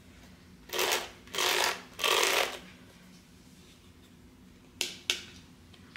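Handling of a pink plastic hairbrush: three short scratchy rustles about a second in, then two sharp clicks near the end.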